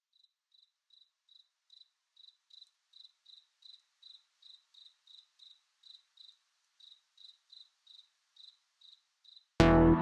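Cricket chirping in an even rhythm, between two and three short high chirps a second, growing louder over the first few seconds. About half a second before the end, loud synthesizer music cuts in suddenly.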